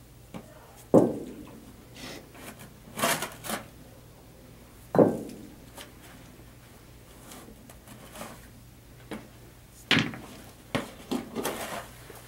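Sand being scooped and poured into a plastic load bucket: three sharp knocks, about four to five seconds apart, with short rushes of pouring sand between them.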